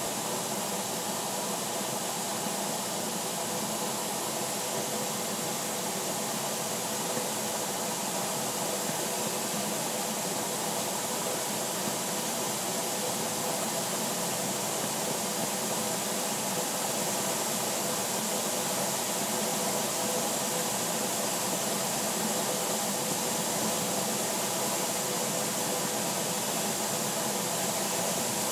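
Steady rush of airflow over the canopy, heard from inside the cockpit of a DG-505 two-seat glider in flight, with a faint steady hum underneath.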